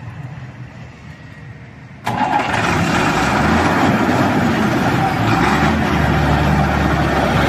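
Renault G260 Turbo truck's turbocharged six-cylinder inline diesel engine being started: after about two seconds it fires suddenly and runs on loud and steady.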